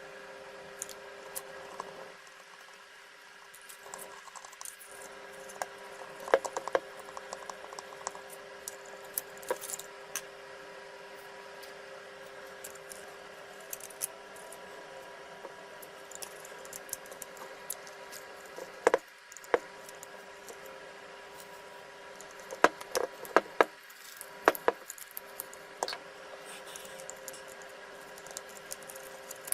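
Scattered small clicks and taps of parts being handled, the loudest cluster about two-thirds of the way through, over a steady faint electrical hum.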